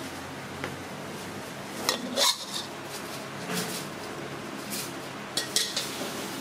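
Metal spatula scraping and clinking against a ceramic serving dish as a thick fish curry is spooned out, with a few sharp clinks; the loudest come about two seconds in and again near the end.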